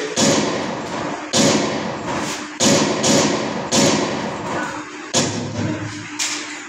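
A series of about seven loud thuds at irregular intervals of roughly a second, each fading away briefly after it hits.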